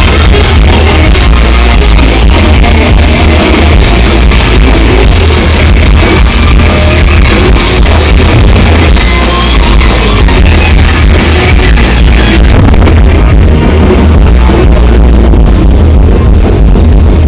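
Thrash metal band playing live at high volume: heavy electric guitars, bass and drums with crashing cymbals. The cymbals drop out about two-thirds of the way through while the low end and drum hits carry on.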